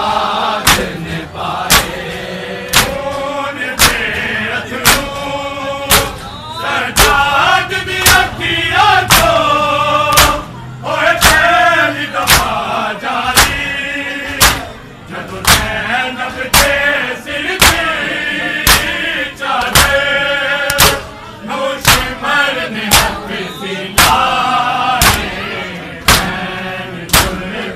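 Men beating their bare chests with open hands in unison (matam), a sharp slap about once a second, while a noha lament is chanted over the beat.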